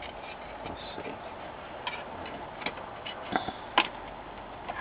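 A small sheet-metal shield being handled and pressed into place on a monitor's steel chassis: a few light, separate metallic clicks and taps, spaced irregularly about a second apart.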